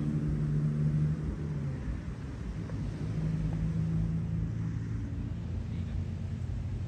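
An engine running, a low steady drone that swells in the first second and again midway.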